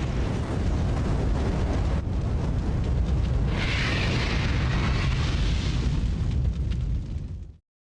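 Loud, continuous low rumble with crackle, like an explosion or eruption rumble. A brighter hiss joins about three and a half seconds in, and the sound cuts off abruptly near the end.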